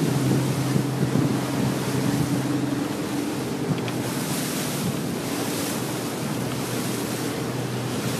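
Motorboat engine running steadily, with wind buffeting the microphone and water rushing past the hull. The engine's low hum eases somewhat about three seconds in.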